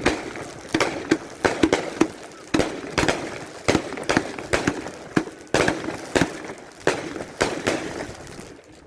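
Fireworks going off in a rapid, irregular barrage: sharp bangs and cracks come two or three a second, with crackling between them, and they thin out and soften near the end.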